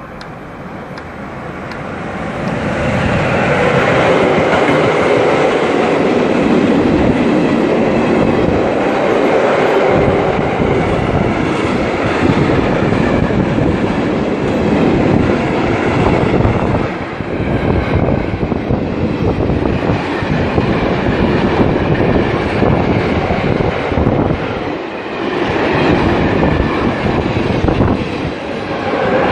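A train passing through a station at speed: the noise builds over the first few seconds as it approaches, then a long, loud run of wheels on rail with a clickety-clack, dipping briefly a few times as the cars go by.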